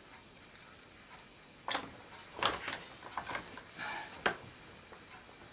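Hard plastic clicks, knocks and a brief scrape as a swivel wheel is worked into its socket on a baby walker's plastic base. There is a sharp click about a second and a half in, then a run of smaller clicks.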